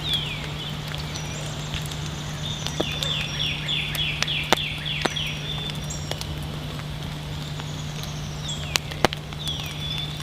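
A bird calling outdoors: repeated high notes that slide downward, with a quick run of about eight of them around three to five seconds in. Scattered sharp clicks and a steady low hum sit underneath.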